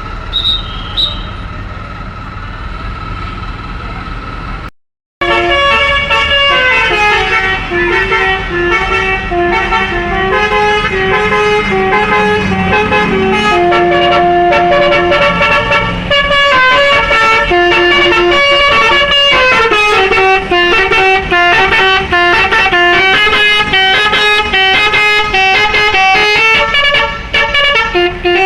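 Telolet Basuri musical bus horn playing a long tune of stepping notes, starting about five seconds in after a brief cut to silence. Before that there is steady road vehicle noise.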